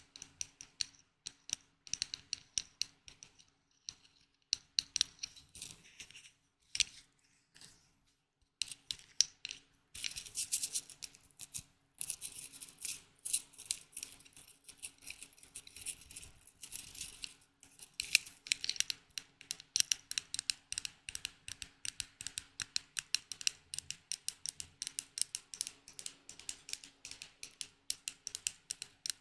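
Close-miked ASMR trigger sounds: a rapid, irregular run of light tapping, scratching and crackling on small objects, denser and louder from about ten seconds in, with a few brief pauses.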